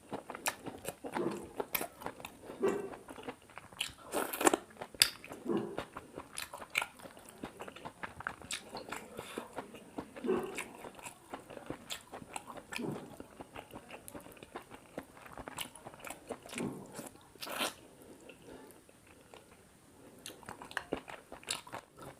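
Close-miked chewing and biting of paratha and chicken curry: wet mouth sounds with many sharp clicks and smacks, loudest around four to five seconds in and again a little before the end.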